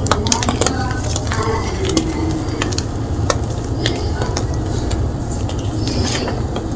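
Gym chalk being crunched and crushed, a steady run of crisp crackles and snaps over a low hum.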